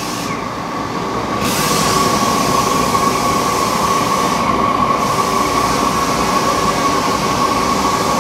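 Gas torch burner running with a steady rushing hiss as it heats an aluminium wheel barrel, expanding the hoop so the wheel centre can be seated. A steady high-pitched tone runs underneath, and the hiss thins out briefly twice.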